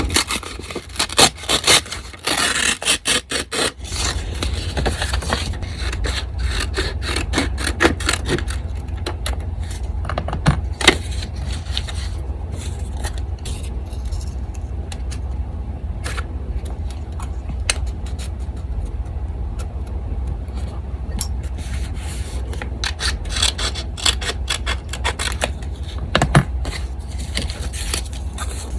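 Paper being handled and rubbed on a desk: rustling and scraping strokes, busy for the first several seconds and then sparser. A steady low hum from an electric fan runs underneath.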